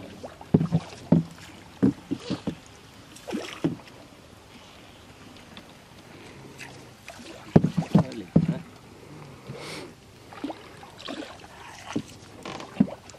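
Irregular knocks and thumps on a wooden boat as a hook-chain fishing line is hauled in by hand and laid in the hull, with a cluster of knocks about half a second in and another about eight seconds in.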